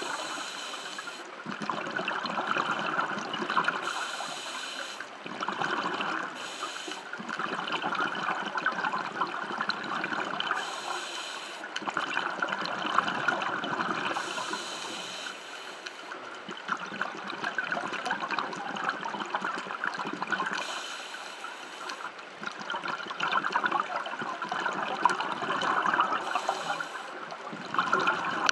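Underwater sound of a scuba diver breathing through a regulator: a hiss and rush of bubbles that comes back every few seconds, over a steady crackle of water and bubbles.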